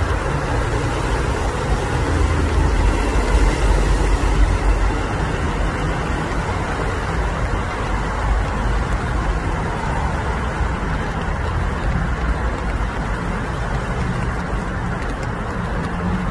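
Steady low rumble of road traffic with a faint engine hum. It holds at an even level throughout, a little louder about three to four seconds in.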